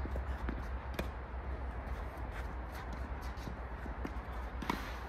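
Scattered light knocks and scuffs of tennis play over a steady low hum, with one louder, sharper hit near the end.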